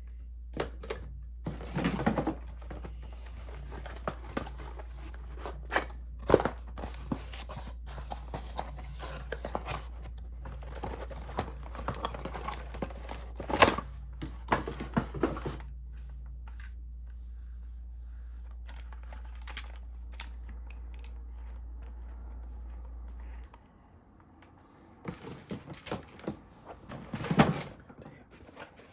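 Packaging and parts being handled: scattered rustling, crinkling, clicks and thunks, over a low steady hum that cuts off about three-quarters of the way through.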